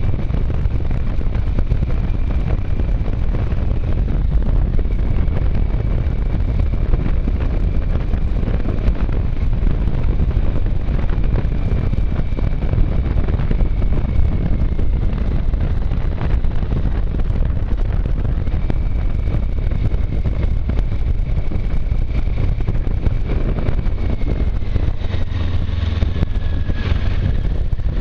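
Motorcycle on the move, its engine running steadily under heavy wind rush on the microphone. A faint high whine runs through it and slides lower near the end.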